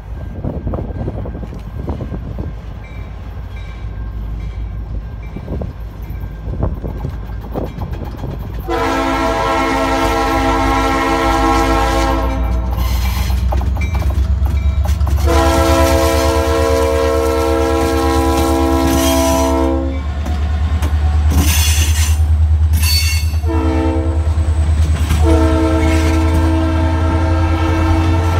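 Norfolk Southern SD40-2 diesel locomotive approaching and passing, blowing its Leslie RS-3L three-chime air horn in the long, long, short, long pattern of the grade-crossing signal. The engine's low rumble builds under the horn as it draws near, and the wheels of the tank cars clack on the rails near the end.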